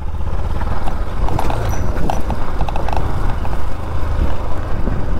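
Motorcycle riding over a rough, stony dirt track: the engine runs under a steady low rumble, with a run of small clicks and knocks about one to three seconds in as the bike goes over stones.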